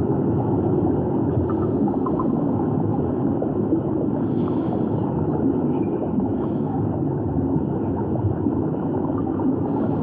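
Underwater ambience: a steady low rumble of water, with faint scattered clicks.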